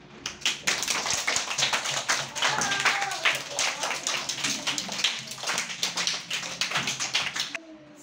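A class of young children clapping their hands, a rapid run of many overlapping claps that stops suddenly near the end, with a few children's voices mixed in.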